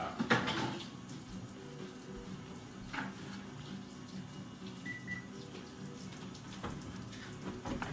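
Quiet room tone: a faint steady hum with a few soft clicks.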